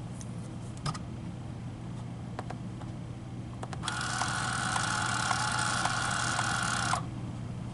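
A couple of soft key clicks, then a handheld label maker's motor runs for about three seconds, feeding tape out with a steady whine and small regular ticks, and stops suddenly.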